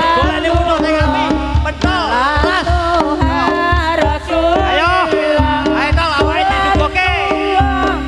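Javanese jaranan accompaniment music played loud over a sound system: a wavering melody with bending, ornamented notes over steady drum strokes.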